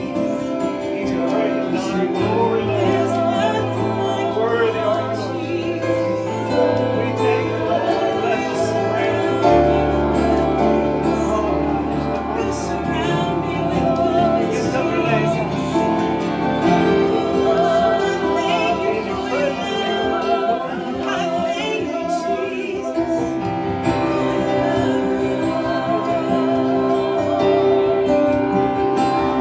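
Worship music: sustained chords over long held bass notes that shift a few times, with a singer's voice wavering above.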